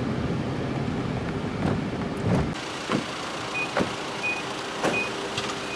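Steady low rumble and hum of a moving vehicle heard from inside its cabin. About halfway through it cuts off abruptly, and a construction vehicle's reversing alarm is heard beeping about every 0.6 seconds, with a few scattered knocks.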